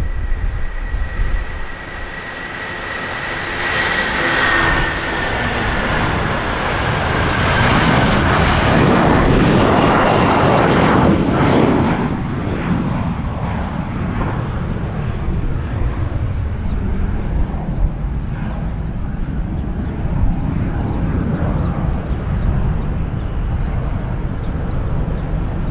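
The two Rolls-Royce RB211-535E4 turbofans of a Boeing 757-200 at takeoff thrust. A high fan whine drops slightly in pitch as the jet passes during rotation, and the engine noise builds to its loudest about ten seconds in, then fades to a steadier rumble as it climbs away. Wind gusts buffet the microphone.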